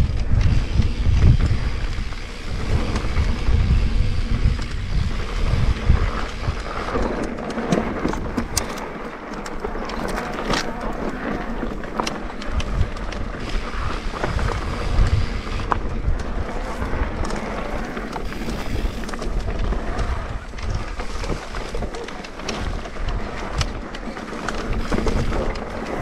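Riding noise from an electric mountain bike on a trail: wind rumbling on the microphone, tyres rolling over dirt and rocks, and the bike rattling, with many sharp clicks and knocks. The wind rumble is heaviest for the first several seconds.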